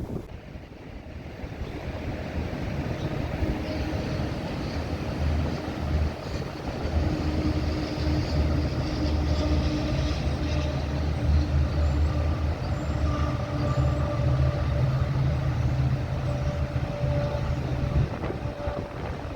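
A large engine running steadily with a low hum, growing louder over the first several seconds; its low drone cuts off abruptly about a second before the end.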